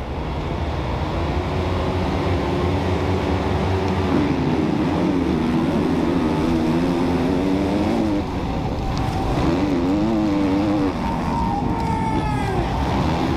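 Onboard sound of a KTM 450 SX-F motocross bike's four-stroke engine at hard throttle out of the start, its pitch climbing and dropping through the gears, with heavy wind rumble on the bike-mounted microphone.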